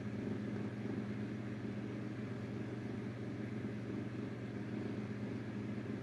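A steady low hum: a constant drone of a few pitched tones over a light hiss, holding level throughout.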